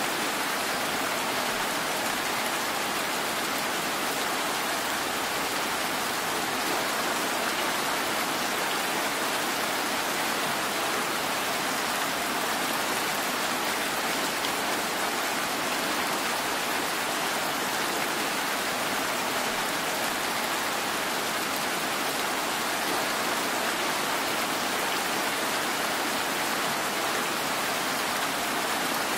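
Steady rain, an even hiss that neither rises nor falls, with no traffic or voices standing out.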